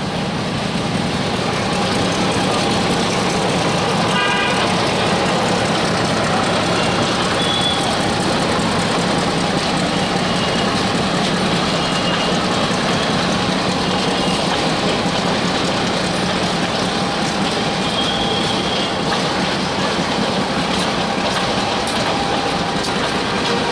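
WDM-3A ALCO diesel locomotive running under load with a steady engine drone that swells over the first couple of seconds. A short horn toot comes about four seconds in.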